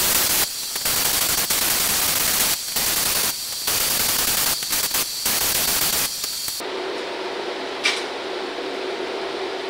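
Compressed-air gravity-feed spray gun hissing as it sprays primer, in passes broken by several short gaps where the trigger is let off, with a faint thin whistle over the hiss. The spraying stops abruptly about two-thirds of the way through, leaving a low steady hum.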